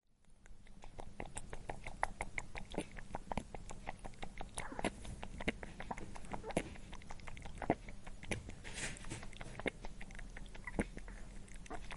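A rabbit chewing crunchy food, a quick irregular run of small crisp crunches.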